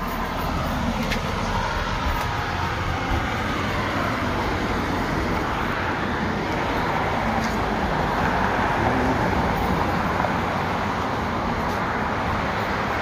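Street traffic: cars passing on the road, a steady rush of tyres and engines that swells a little past the middle.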